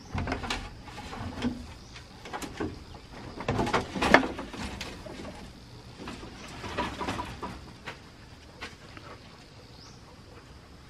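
Bamboo poles and plastic mesh of a cage frame knocking, rattling and scraping as it is lifted and moved, in irregular clatters with the loudest knock about four seconds in, quieter near the end.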